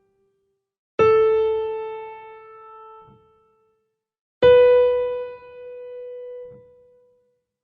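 Two single notes on a piano-like keyboard instrument. The first is struck about a second in, and the second, a little higher, about four and a half seconds in. Each rings on and fades away over two to three seconds, and a faint low thud comes as each note ends.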